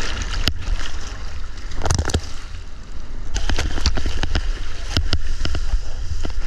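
Water rushing and splashing over a camera on a surfboard's nose as the board rides a wave, with a steady low rumble of water and wind on the microphone. Spray strikes the housing in many sharp ticks, with a loud splash about two seconds in and the ticks thickest in the second half.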